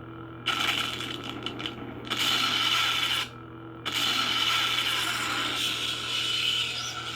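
Lightsaber sound board playing its steady low blade hum through the hilt speaker, with two long, louder noisy effects laid over it, the first starting suddenly about half a second in and the second a little after halfway.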